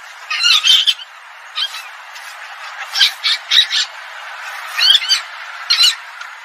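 Palm civet lure call: harsh, squawking cries in about five short bouts, each wavering in pitch, over a steady hiss.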